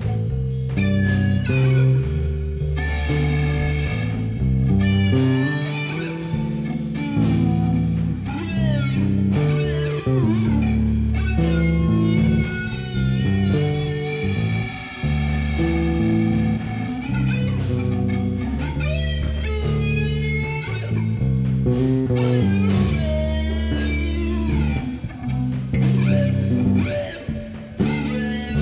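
Psychedelic rock jam: an electric guitar plays lead lines with bent, wavering notes over a bass line and drums keeping time with steady cymbal hits.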